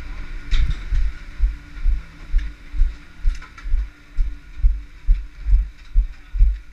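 Footsteps of someone walking at a steady pace, heard as low thuds about twice a second through a body-worn camera.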